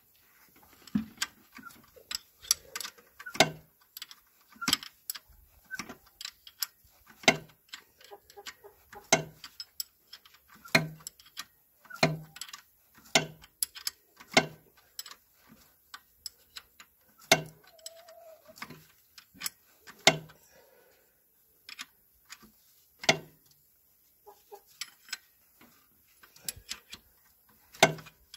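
Sharp, irregular metallic clicks and taps from hand tools working on the car's underside, one to two every second, with a short pause a little after the middle.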